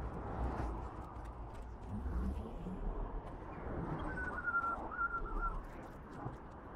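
Road traffic passing close by: cars and a box truck going past with a low rumble and tyre noise. A brief high squeal in a few short pieces comes about four seconds in.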